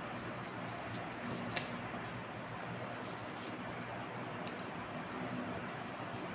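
Steady room hiss with a faint low hum, and a few soft, brief scratches of a watercolour brush stroking across paper.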